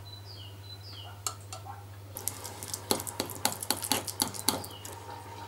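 Metal spoon clinking and scraping against a fine metal mesh strainer as thick currant filling is pressed through it: a quick, irregular run of sharp clicks starting about two seconds in and stopping shortly before the end.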